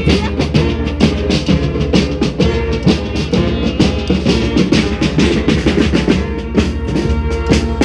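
Street brass band playing a rock tune: bass drum and snare keep a driving beat under horns.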